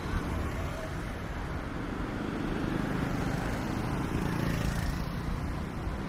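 Street traffic noise, with a vehicle's engine swelling as it goes by midway and easing off near the end.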